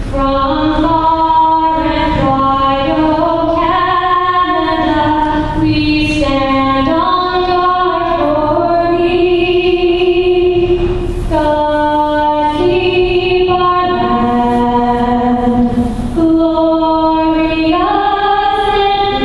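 A woman singing the national anthem solo, holding long notes and moving from note to note.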